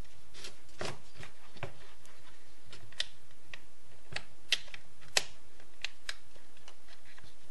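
Plastic chain-brake parts of a Stihl chainsaw clicking and tapping against the crankcase as they are handled and fitted onto their stud: irregular light clicks, the loudest a couple of sharper knocks around the middle.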